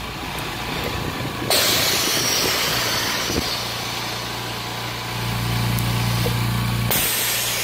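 Home-built oxygen concentrator running. Its roughly 2-horsepower air compressor hums steadily, and a hiss of air starts suddenly about one and a half seconds in and cuts off near the end, as the valves switch the sieve beds on their roughly five-second cycle.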